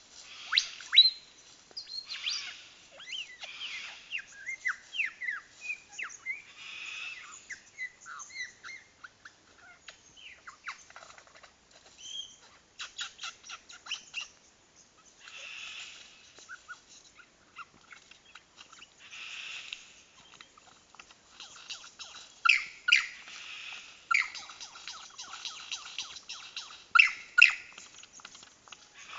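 Superb lyrebird singing its courtship song: a varied run of calls with quick falling laser-like 'blaster' sweeps and fast rattling runs of clicks. The loudest calls come about a second in and twice near the end.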